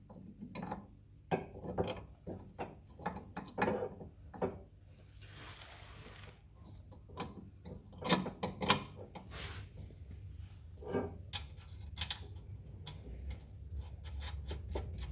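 Scattered metallic clicks and knocks of hand tools working a sway bar link: a 14mm spanner held on the ball joint while a 15mm socket and ratchet do up the nut, with a short rasp about five seconds in.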